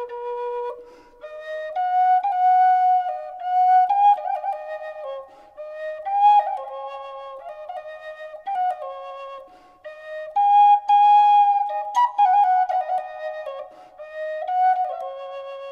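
Solo flute playing a slow melody of held notes that step up and down, with a few short slides between them.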